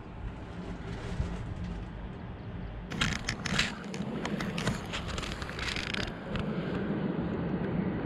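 Wind rumbling on the microphone, with a run of crackling, scraping clicks from about three to six seconds in as grass brushes against the handheld camera.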